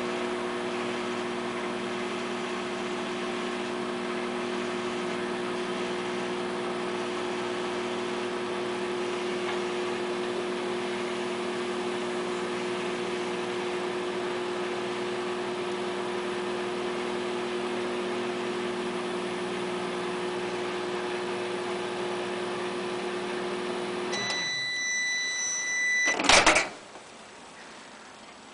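Microwave oven running with a steady electrical hum. About 24 seconds in, the hum stops and the oven beeps, followed by a loud clunk.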